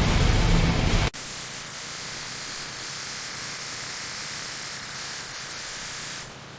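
A loud, rumbling rush of noise cuts off abruptly about a second in. A steady hiss follows and drops lower near the end.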